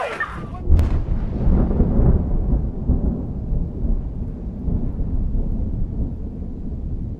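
Thunder sound effect: a sharp crack about a second in, then a long, low, rolling rumble.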